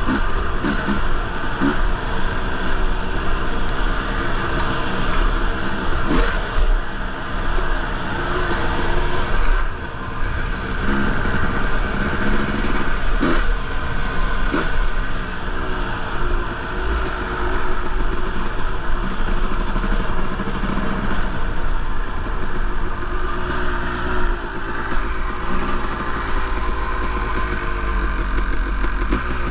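Honda CR250R single-cylinder two-stroke dirt bike engine running under way, its revs rising and falling with the throttle, with a low rumble underneath and a few sharp knocks.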